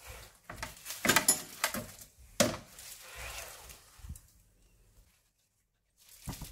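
Several sharp knocks and light clatter as a plate of vegetables is lifted off a wooden cutting board and set down beside the stove. The sound cuts off for about a second near the end.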